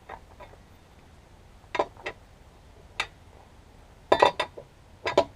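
Hand tools clinking and knocking on metal while a wrench works the truck's wheel lug nuts: a few sharp clicks spread out, then a quick cluster of metallic knocks about four seconds in.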